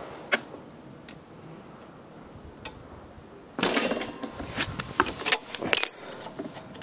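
Metal clicking and clinking of a spark plug spanner being worked loose on a lawnmower engine's tight spark plug: one click near the start, then a quick clattering run of clicks for about two seconds from around halfway.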